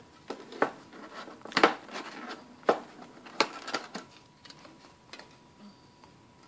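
Hands handling a metal trading-card tin and the stiff clear plastic packaging of a promo card: a string of sharp, irregular clicks and crackles, loudest about a second and a half in.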